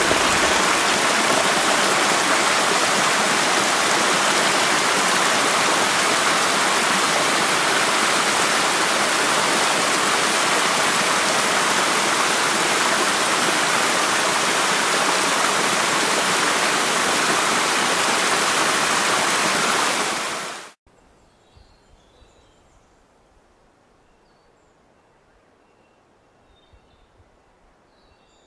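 Steady rushing water of a mountain stream and small forest waterfall, cut off abruptly about three-quarters of the way in. What is left is a faint, quiet background with a few high chirps.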